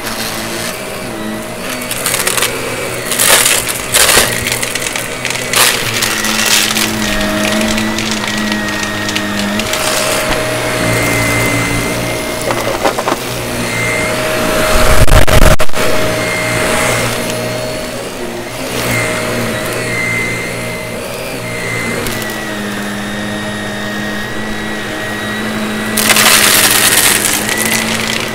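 Vacuum cleaner running steadily while sucking up crunchy debris, which crackles and rattles up the nozzle in several bursts, with a longer stretch of crackling near the end.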